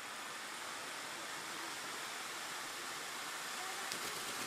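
A pair of firework fountains spraying sparks with a steady, even hiss. There is a single small click about four seconds in.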